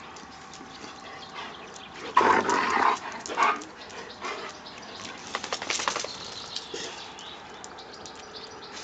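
Dog barking: one loud bark about two seconds in and a shorter one about a second later, then a quick run of short sounds between about five and six seconds.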